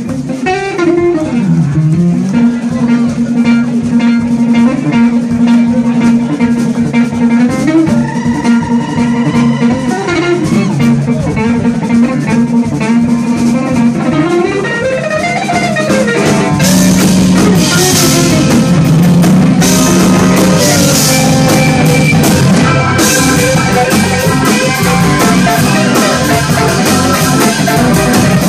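Live funk-jazz band: a hollow-body electric guitar plays a lead line with bent notes over a drum kit. About halfway through, the band gets fuller and louder, with bright cymbals.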